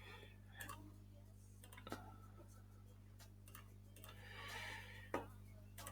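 Near silence with a steady low hum and a few faint, sharp clicks, the loudest about five seconds in.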